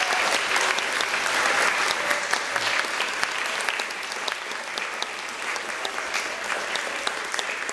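Audience applauding in a hall: dense clapping at first, easing about three seconds in, with single claps standing out.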